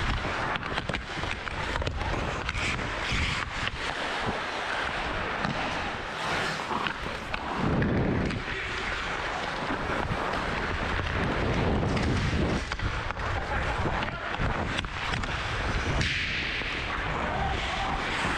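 Ice hockey skates scraping and carving on rink ice during play, with scattered sharp clicks and wind rushing over the microphone.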